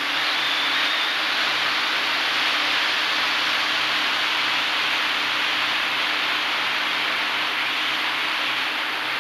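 Hexacopter in flight, heard from its onboard camera: the brushless motors and propellers make a steady rushing noise with a faint low hum, mixed with wind on the microphone.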